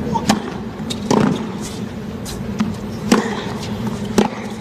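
Tennis ball struck by rackets in a rally: sharp pocks roughly once a second, over a steady background hum.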